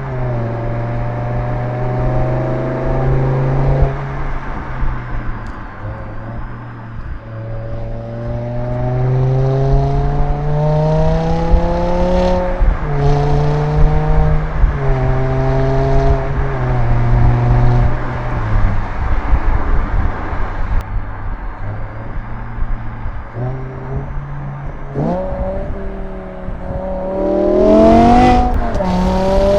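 BMW M6 E63's naturally aspirated 5.0 L S85 V10 accelerating, its pitch climbing steadily and then stepping down at a run of quick gear changes. Near the end the revs rise sharply in a fast, loud swing.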